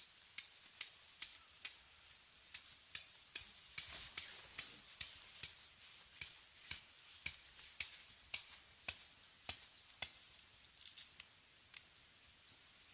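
Faint, regular hammer-like knocking, about two sharp strikes a second, thinning out and stopping about ten seconds in.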